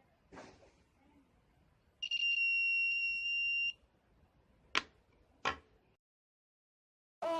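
Small electronic buzzer sounding one steady high-pitched beep for about a second and a half, followed by two sharp clicks.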